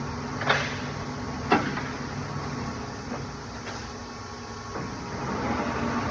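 Steady hum of shop machinery, with two sharp knocks about a second apart from hands-on lathe setup work. A louder hiss comes in near the end.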